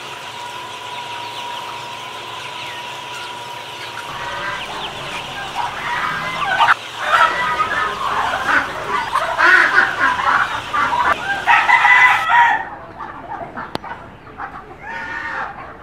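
Chickens clucking and a rooster crowing, loud and overlapping from about four seconds in, cutting off suddenly a little after twelve seconds, with one more short burst near the end. A steady thin hum sits under the first few seconds.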